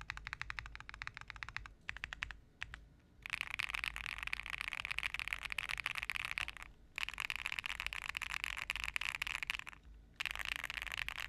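Mechanical keyboard with Akko Cream Yellow V3 Pro linear switches being typed on. It starts with distinct, evenly spaced keystrokes, then three runs of very fast continuous typing of about three seconds each, with short pauses between them.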